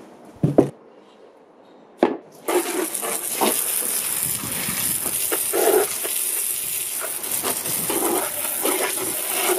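A board set down with a knock about half a second in, then from about two and a half seconds a steady hissing jet of water spraying and splashing over degreased vise parts on a plywood board.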